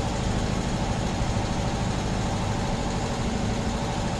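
Electric hydraulic pump motor of a cherry picker running steadily under power with an even low hum.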